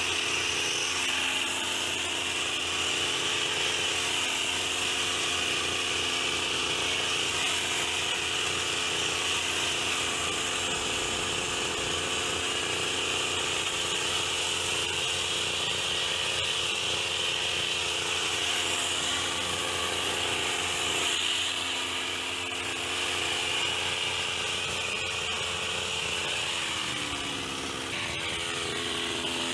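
Petrol hedge trimmer engine running steadily at high revs. Near the end the revs drop briefly, then pick up again.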